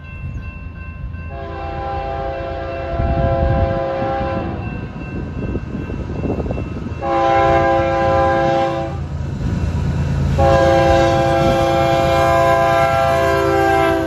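Union Pacific diesel freight locomotive's multi-note air horn sounding three blasts: long, shorter, then the longest. A steady low rumble of the locomotive and the rolling train runs underneath as it approaches and passes.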